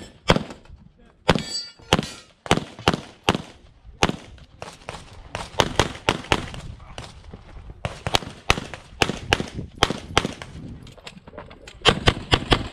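Rapid pistol fire from a Grayguns-tuned SIG Sauer P320 X5 Legion in 9mm, the shots coming mostly in quick pairs with short gaps between them as the shooter moves from target to target.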